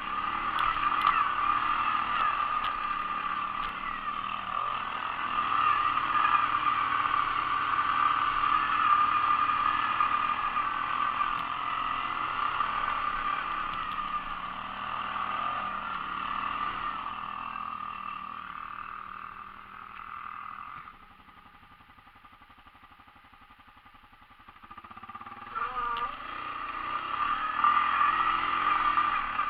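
ATV engines running and revving, fading away for a few seconds about two-thirds of the way in, then coming back louder near the end.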